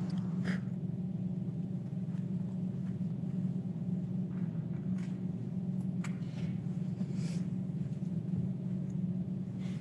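Steady low hum of room tone from an open microphone, with a few faint clicks and scrapes.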